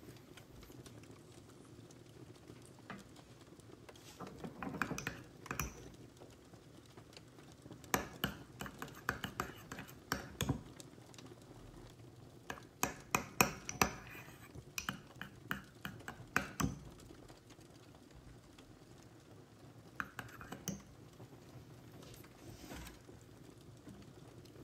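A small metal spoon clinking and scraping against a ceramic pot of melted chocolate as it is stirred and lifted. The clinks come in several clusters of light taps, with quiet gaps between them.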